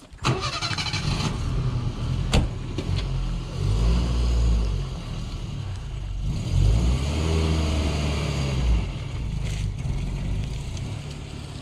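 A vehicle engine running, its pitch rising and falling a few times.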